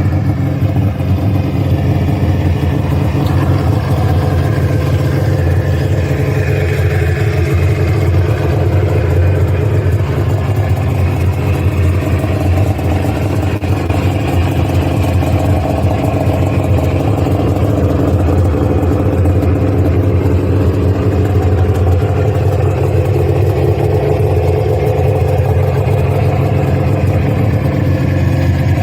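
1993 Arctic Cat Thundercat snowmobile's three-cylinder two-stroke engine running steadily near idle, its pitch drifting slightly up and down.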